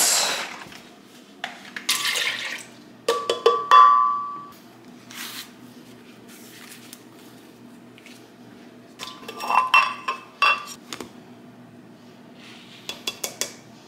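Kitchenware clinking and knocking as smoothie ingredients are added to a blender: a short pour about two seconds in, then clusters of ringing clinks of dishes and utensils.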